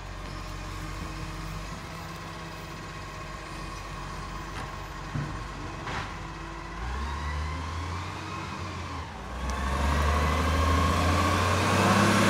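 Iveco garbage truck's diesel engine running as the truck approaches. It gets much louder about nine seconds in, and the engine pitch rises as it accelerates near the end.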